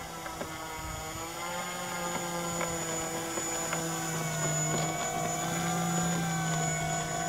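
The two engines of a radio-controlled B-25 Mitchell scale model run on the ground with their propellers turning. They make a steady droning hum whose pitch wavers slightly and which grows a little louder.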